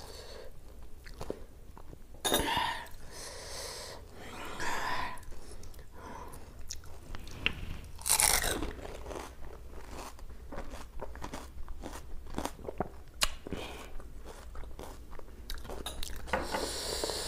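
Pani puri being eaten close to the microphone: crisp hollow puris filled with spicy pani crunching as they are bitten, with wet chewing between bites. The loudest crunch comes about eight seconds in.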